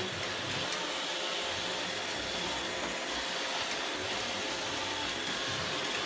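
Roomba robot vacuum running steadily: an even hiss with a faint steady tone underneath.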